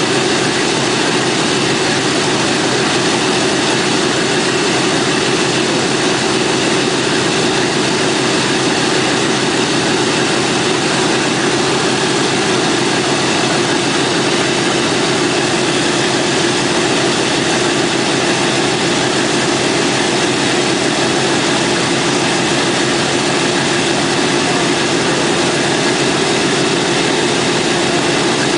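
Boeing B-17's Wright R-1820 Cyclone nine-cylinder radial engines running steadily on the ground, propellers turning, loud and unchanging throughout.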